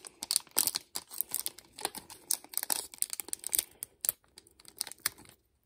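Foil Pokémon card booster pack wrapper crinkling in a rapid, irregular run of sharp crackles as fingers pick at and peel apart its crimped seam.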